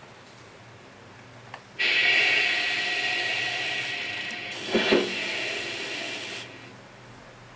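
A click, then a train sound effect from a TOMYTEC 101-series N-gauge sound controller's small speaker starts abruptly: a hiss lasting about four and a half seconds, with a short thump near its end, before it cuts off.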